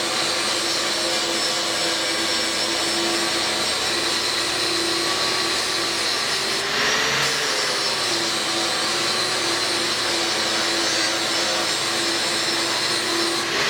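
Angle grinder with a 40-grit flap disc running steadily as it grinds weld remnants smooth on the mini bike's metal frame tube. The whine rises briefly in pitch about halfway through, then settles back.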